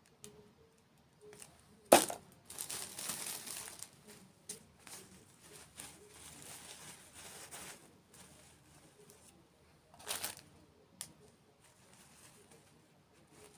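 Close-miked eating sounds of crunchy dessert: a sharp crack of a bite about two seconds in, then a stretch of crunching, with another short crunchy burst near ten seconds.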